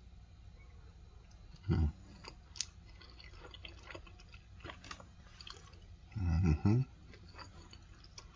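A person chewing and smacking on a mouthful of barbecue chicken, rice and corn, with small wet mouth clicks throughout. There are two short, louder low sounds, about two seconds and six seconds in.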